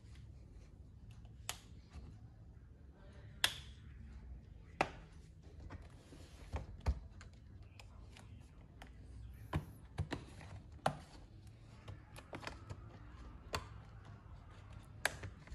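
Irregular sharp plastic clicks and taps as an HP x360 laptop's bottom casing is pried open, over a low steady hum.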